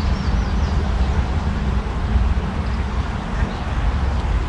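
Outdoor ambience: a steady, dense low rumble with faint high chirping in the first second.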